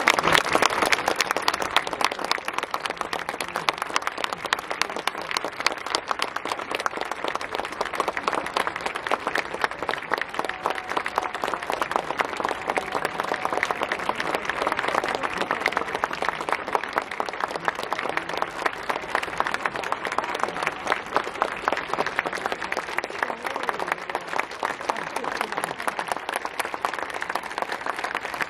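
Steady applause from a stadium crowd, many hands clapping at once without letting up.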